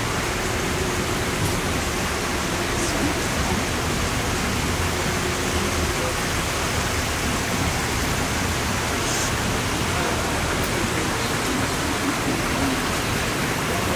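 Steady rushing hiss of flowing water from the greenhouse's fountains and ride channel, with faint voices under it.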